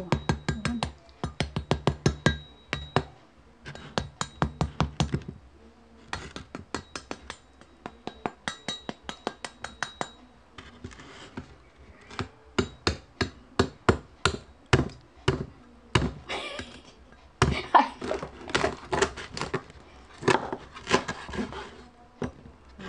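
Meat cleaver chopping through crispy-skinned deep-fried pork belly (lechon kawali) on a wooden cutting board: runs of sharp knocks, several a second, as the blade crunches through the crackling and hits the board.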